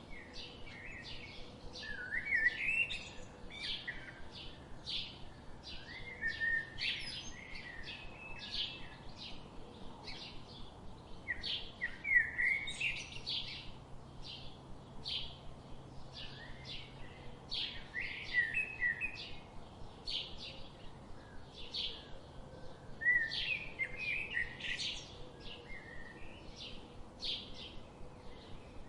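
Songbirds singing in chorus: a dense, continuous stream of short high chirps, with louder warbling song phrases breaking in every few seconds.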